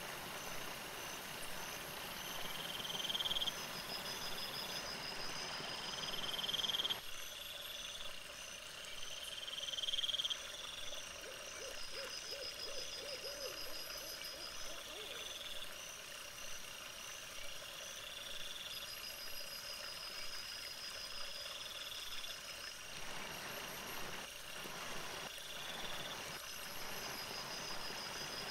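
Crickets and other night insects chirping in repeated short, high trills over a steady high whine. A brief low warbling trill comes about twelve seconds in, and a few sharp clicks come near the end.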